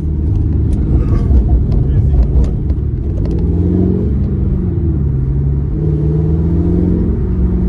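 Car engine and exhaust under way, a heavy low rumble whose note rises and falls as the throttle is worked, with some wind noise.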